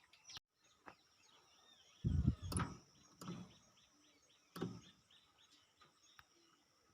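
A few short clunks and knocks from handling the motor starter, the loudest about two seconds in and another just after the middle, with faint bird chirps behind; no loud starter hum is heard.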